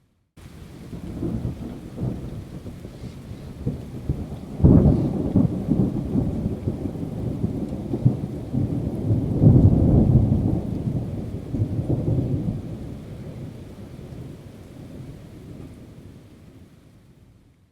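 A long roll of thunder. After a moment of silence a low rumble builds, with a sharp crack about four and a half seconds in and a second loud swell around ten seconds. It then slowly fades away.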